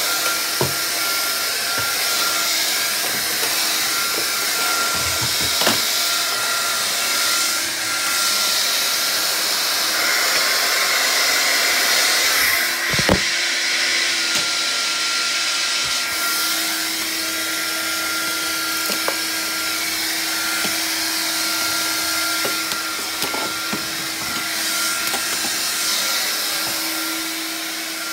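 Vax Air Cordless upright vacuum cleaner running steadily with a motor whine, with a few sharp clicks scattered through.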